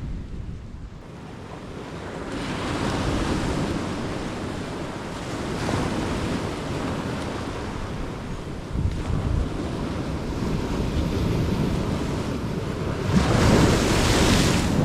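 Ocean surf washing up a beach, with wind rumbling on the microphone. The wash swells several times and is loudest near the end.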